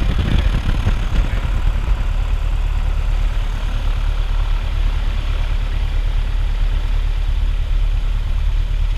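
Light aircraft's piston engine and propeller running at low taxi power: a steady, even drone, a little busier in the first second or so.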